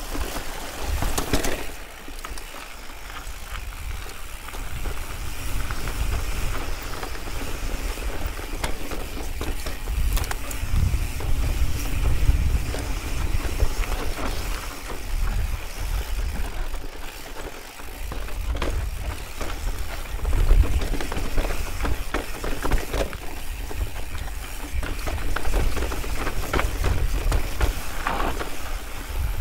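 Mountain bike riding down a rocky trail: wind buffets the microphone with a low rumble, while the bike rattles and clatters over rocks in many short knocks.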